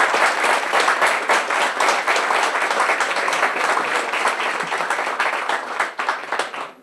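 Applause from a room of about twenty people, a dense patter of many hands clapping at once, greeting an election result. It thins out and stops near the end.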